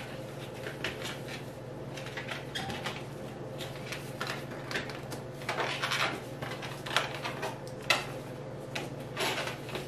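Inflated latex modelling balloons rubbing against each other and against hands as they are twisted and tied together, in short irregular squishy scrapes that come thicker in the second half.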